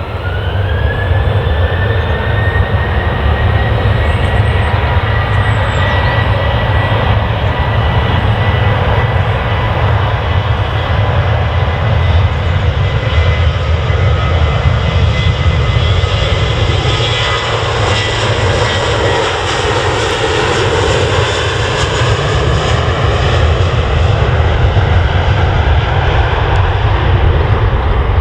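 Jet airliner's engines spooling up for take-off: a whine rises in pitch in the first second, then holds steady and high over a loud deep rumble. The roar is loudest about twenty seconds in as the aircraft passes.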